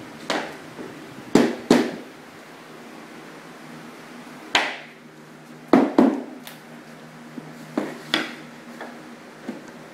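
Sharp wooden knocks, about a dozen at irregular intervals and some in quick pairs, as lock-and-fold engineered hardwood floor planks are knocked and pressed into place.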